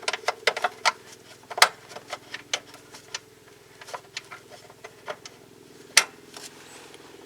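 Hand work with tools and a plastic trim piece in a truck's engine bay: a run of sharp clicks and ticks, quick in the first second, then scattered, with a louder one about six seconds in. A steady low hum lies underneath.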